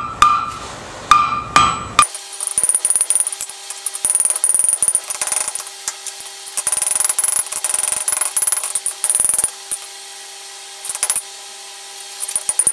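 Hand hammer striking a glowing steel ring over the anvil horn: about three blows in the first two seconds, each with a bright ring from the anvil. About two seconds in the sound changes abruptly to a long run of rapid, light tapping in short bursts.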